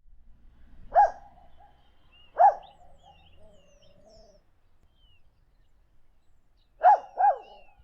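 Puppy barking four times: single barks about a second and two and a half seconds in, then a quick pair near the end. Birds chirp faintly between the barks.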